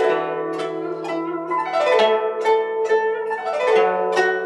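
Guzheng, the Chinese plucked zither, played solo: a quick run of plucked notes ringing over a held low note. Some notes bend in pitch as the left hand presses the strings.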